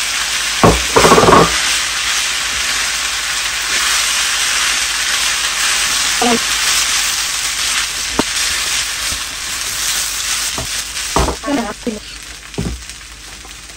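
Rice with mutton, carrots and sultanas sizzling in a hot electric skillet while a spatula stirs it through. There is a loud cluster of clattering knocks about a second in as the last carrots are knocked from a bowl, and a few more single knocks later. The sizzle fades near the end.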